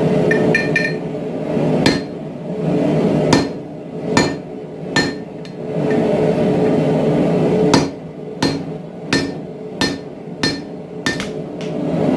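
Blacksmith's hammer striking spring steel on an anvil: about a dozen separate blows at an uneven pace, each with a short metallic ring, over a steady drone.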